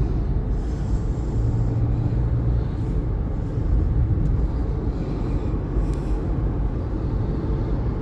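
A car at highway speed, heard from inside the cabin: a steady low rumble of road and engine noise.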